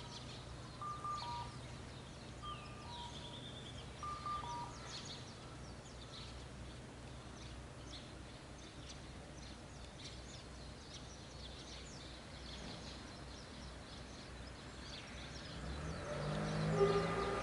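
Outdoor ambience of small birds chirping, with a bird repeating a short two-note falling call a few times near the start, over a low steady hum of distant traffic. A louder low sound swells up near the end.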